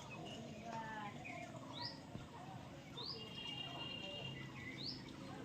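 Baby parrot giving short, rising chirps, repeated about once a second.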